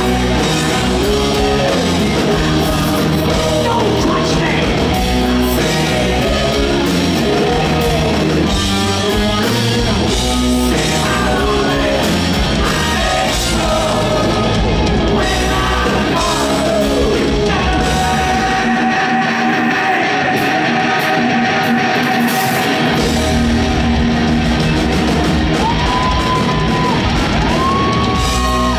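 Live hard rock band playing loud, with electric guitars and drums, and a male voice singing and yelling over it. For a few seconds past the middle the bass and drums drop out under a single held high note, then the full band comes back in, with rising pitch slides near the end.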